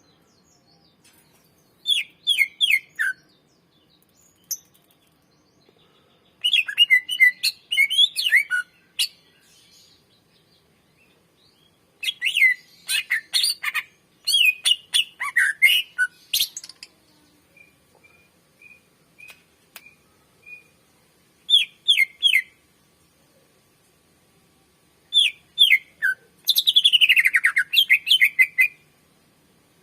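A cucak ijo (green leafbird) singing in separate bursts of fast, sharply gliding whistled phrases, with silent gaps of a few seconds between them. A short row of soft, evenly spaced single notes comes about two thirds of the way through, and the longest, densest phrase comes near the end.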